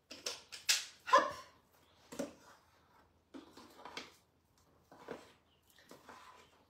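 A string of short, irregular scrapes and knocks: a metal scoop digging whisked egg whites out of a stainless steel mixer bowl and releasing them onto a plate.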